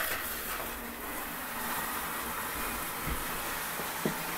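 Shower head spraying water steadily, the spray hitting the far wall of a plastic corner shower stall and running down to the drain. Two faint knocks come near the end.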